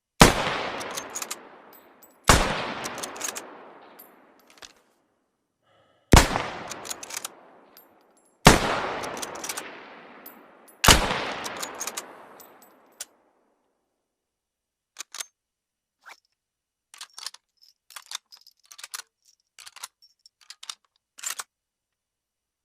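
Mosin-Nagant M91/30 bolt-action rifle (7.62×54mmR) firing five shots spaced about two to four seconds apart, each followed by a long echoing tail. For the last several seconds there is a run of short, fainter clicks.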